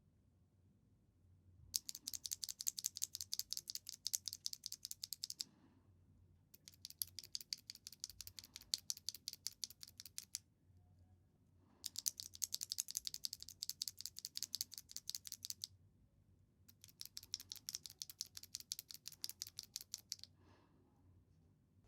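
Alpaca V2 linear mechanical keyboard switches pressed rapidly over and over, giving fast, sharp clacking. The clacking comes in four runs of about four seconds each, with short pauses between them.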